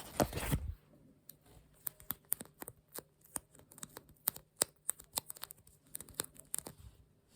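A brief tearing sound, then irregular sharp light clicks and crackles close to the microphone, typical of ASMR handling of sticky or paper materials.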